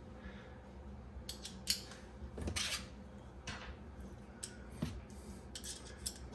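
Scattered light clicks and short scrapes of dishwasher parts being handled and fitted back together, with one longer scrape a little over two seconds in.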